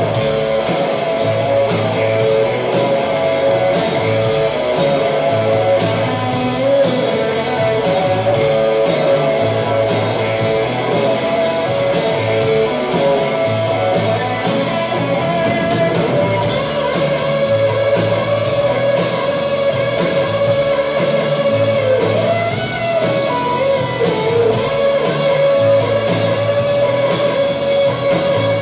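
Live rock band playing an instrumental passage with no singing: held electric guitar notes over a steady drum-kit beat.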